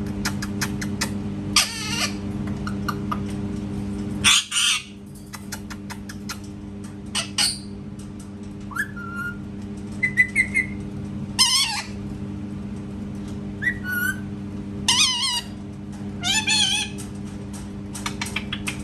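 Parrot calling: a series of loud, wavering squawks a few seconds apart, with short whistled notes between them. A steady low hum runs underneath.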